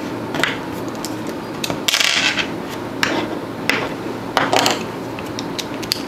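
Small hard clicks, taps and scrapes of handling a plastic car key fob and a precision screwdriver on a tabletop: a short scraping rattle about two seconds in, then several light clicks.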